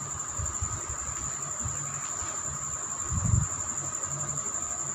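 A steady, high-pitched whine with a fainter lower hum beneath it, over an irregular low rumble, with one low thump about three seconds in.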